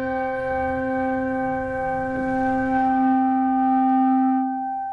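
A single bell, struck once just before, ringing on with one clear pitch and many overtones that slowly fade and die away near the end. It is tolled after a name of the dead is read aloud.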